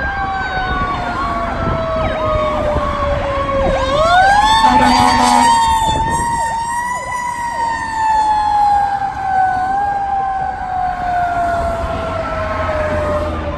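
Fire engine running its sirens in traffic. A mechanical siren winds slowly down, winds back up sharply about four seconds in, then slowly falls again, while an electronic siren cycles rapidly over it. A short horn blast comes about five seconds in.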